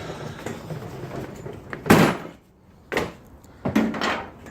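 Three clunks, knocks and rubs from hands-on work in a car's engine bay, the loudest a sharp knock about two seconds in.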